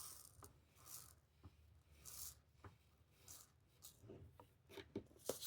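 Faint scraping swishes about once a second with a few light clicks: loose hotfix rhinestones being swept back into their container.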